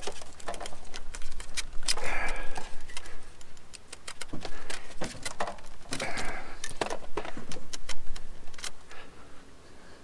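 Irregular clicks, taps and clattering knocks of small parts and tools being handled, with two short rushing noises about two and six seconds in.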